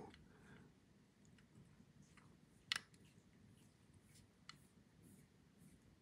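Near silence broken by two small clicks: a sharp one a little before the middle and a much fainter one about two seconds later. These come from a precision screwdriver bit working the loose handle screws of a Luft Concepts Avant folding knife.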